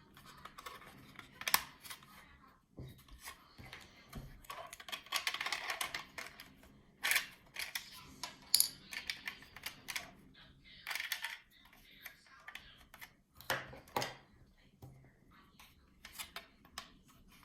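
Small hard objects being handled: irregular sharp clicks and taps with short bursts of rustling between them.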